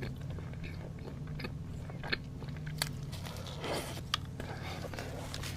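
Close-up ASMR eating sounds: bread being bitten and chewed, with a few sharp clicks and a short crunchy rustle about three and a half seconds in, over a steady low hum.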